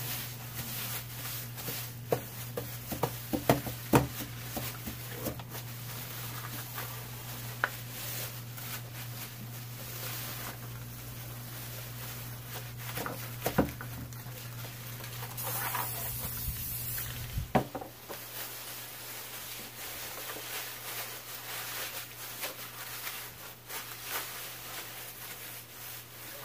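Thin plastic shopping bags crinkling and rustling as gloved hands crumple and press them onto paper, with scattered small clicks and taps. A steady low hum in the background stops about two-thirds of the way through.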